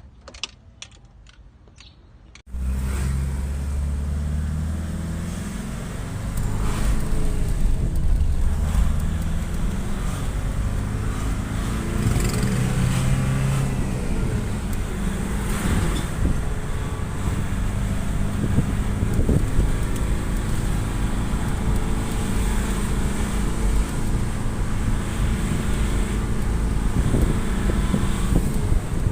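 Nissan Urvan's ZD30 four-cylinder diesel engine running steadily. It cuts in suddenly after a couple of seconds of faint clicking and grows louder about six seconds in.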